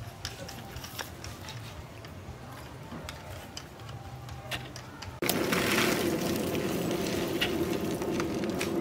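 Scattered light clicks and rustles of dry wood shavings being arranged in the forge. About five seconds in, a steady, louder whirring hum starts suddenly: air being driven into the charcoal forge as the kindling catches.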